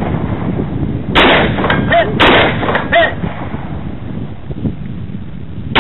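AR-15 rifle with a Battlecomp compensator firing two shots about a second apart. Each shot is followed under a second later by a short ringing note from a struck steel target downrange.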